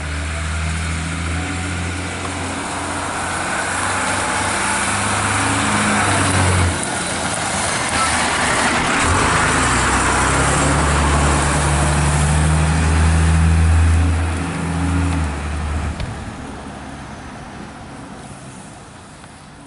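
DAF fire engine's heavy diesel engine running close by, with a low steady drone and tyre and road noise. It grows louder up to its loudest about two-thirds of the way through, the drone stops suddenly, and the sound then fades as the truck drives off.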